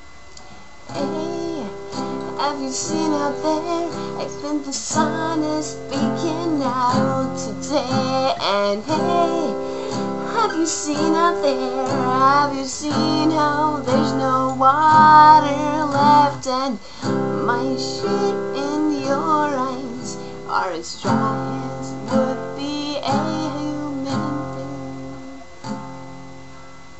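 A woman singing to her own strummed acoustic guitar; the song starts about a second in and fades out near the end.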